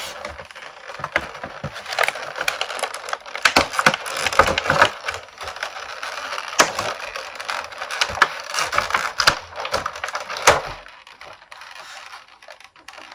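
Stiff plastic packaging crackling and crinkling with many sharp snaps as an action figure is pulled free of its tray; it dies down about eleven seconds in.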